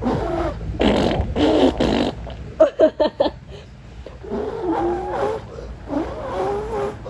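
Non-word vocal noises from a person: breathy, sputtering bursts, a quick run of short pulses about three seconds in, then wavering, wobbling howls.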